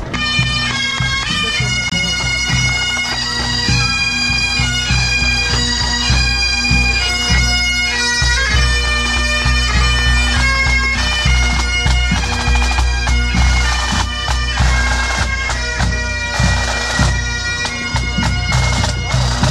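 A marching pipe band: Highland bagpipes play a tune over their steady drone, with snare drums rattling and a bass drum beating along.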